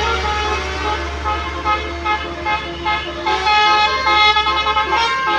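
Indonesian bus 'telolet' horn: a multi-tone musical horn playing a tune of held notes that step from pitch to pitch, over a steady low engine hum.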